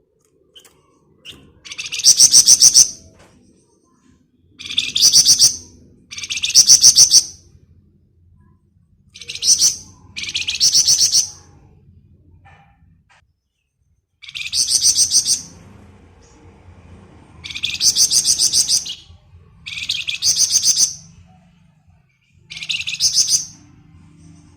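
A flamboyan songbird giving its rapid, buzzy 'ngebren' trill about nine times, each burst lasting about a second with short pauses between, over a faint low hum.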